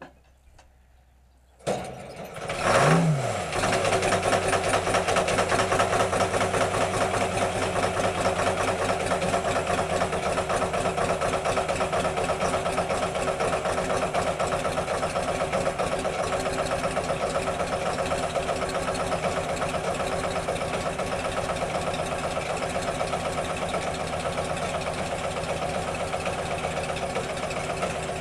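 Hy-Hoe 685B excavator's diesel engine starting: it catches about two seconds in, briefly revs up and back down, then settles into a steady run.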